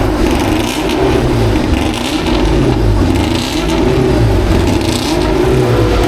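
Racing car engines at high revs, their pitch climbing and dropping again several times as the cars accelerate and change gear.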